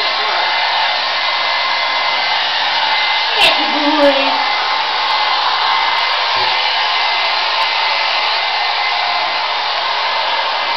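Handheld hair dryer running steadily on low heat, a constant rush of air with a faint steady whine. Two brief knocks come about three and a half and four seconds in.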